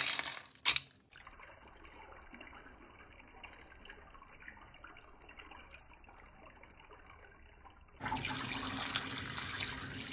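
Dry fusilli pasta rattling as it tips into a stainless-steel colander, lasting under a second. A quiet stretch follows, then about eight seconds in water is poured from a plastic bowl over the pasta in the colander, splashing steadily.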